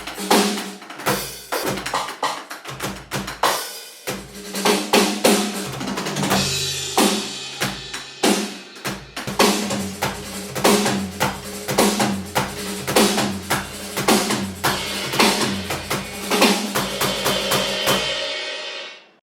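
Roland TD-50 electronic drum kit played in a busy groove of kick, snare and cymbals, over low sustained notes. The sound fades out near the end.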